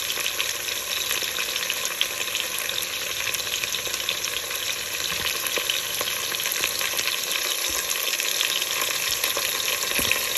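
Beef short ribs searing in hot oil in a Dutch oven: a steady sizzle with fine crackling.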